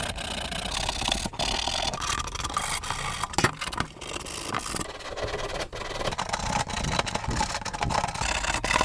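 Sandpaper rubbed by hand along the broken edges of a plastic water tank, a dry scratchy rubbing in short, irregular strokes. It roughens the plastic before the repair.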